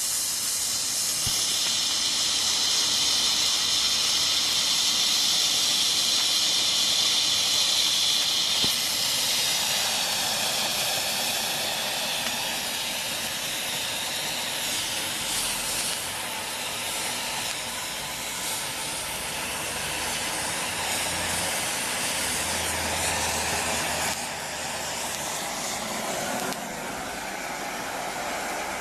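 Bengal flare burning with a steady, loud hiss that turns lower and rougher about nine seconds in.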